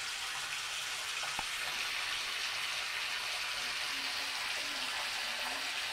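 Water running into a bathtub, a steady even hiss.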